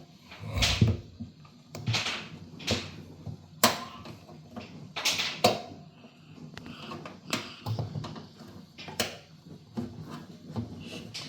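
Irregular knocks, clicks and scrapes of pliers and parts being worked by hand on a washing machine's drain fittings, roughly one every second.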